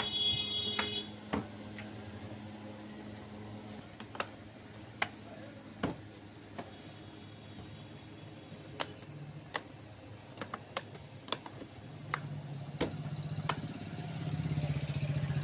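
Scattered sharp knocks and clicks, about one a second, as a plastic wheel is fitted onto a child's ride-on electric jeep. Near the end a low steady electric buzz comes in and grows louder.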